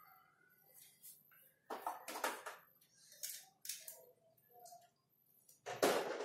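Small plastic Paw Patrol toy figures clicking and clattering as they are set into a plastic toy transporter truck: a few separate sharp knocks, the loudest near the end.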